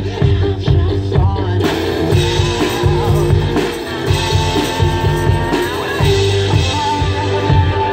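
Live one-man-band street music: a steady, driving beat under a melody line.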